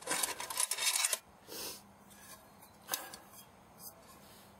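A metal cooking pot being handled and settled on a camping stove: about a second of scraping and rustling, then a short scrape and a few light clicks and taps.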